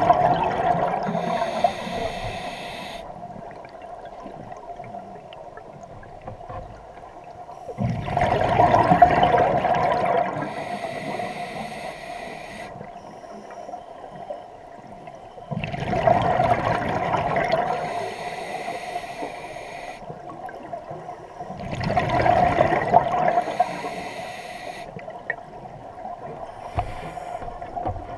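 Scuba diver breathing through a regulator underwater: a loud rush of exhaled bubbles every six to eight seconds, five times, with a hiss between breaths.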